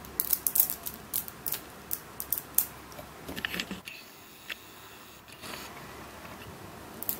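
5 mm neodymium sphere magnets clicking and snapping against each other as they are handled: a scatter of sharp little clicks, thickest in the first half, with a lull past the middle.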